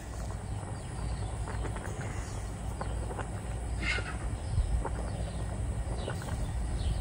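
Propane burner of an outdoor cooker running under a pot of greens at a boil, a steady low rush. A wooden paddle stirs the pot, knocking lightly against it a few times.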